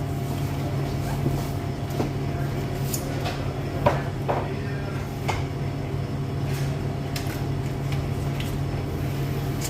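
A steady low machine hum, with scattered knocks and clicks of things being handled, the sharpest about four seconds in.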